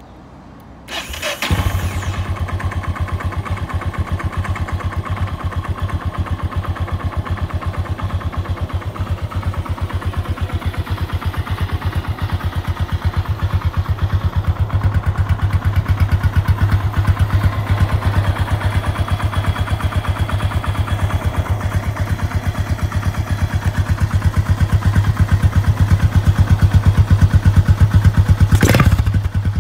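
Yamaha SRX600's single-cylinder engine, fitted with a Yoshimura exhaust, starts about a second in and settles into a steady idle with an even beat of firing pulses, warming up from a cold start. It gets a little louder near the end, then cuts off abruptly.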